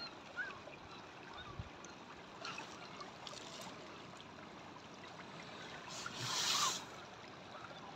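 Faint trickling of shallow fresh water running over stones and seaweed in a rock pool, with a heavy breath about six seconds in.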